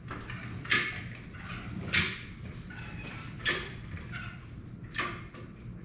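Four sharp clicks or knocks, evenly spaced about a second and a half apart, over a low steady background.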